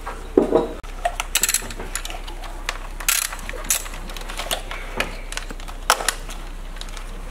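Irregular clicks and clacks of hand tools at work on an engine's top end: a small ratchet wrench clicking and a screwdriver working at plastic clips and fasteners, with a few louder clacks scattered through.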